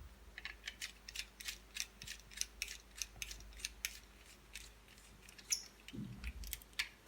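A run of light, sharp clicks, about three a second at first and sparser after about four seconds.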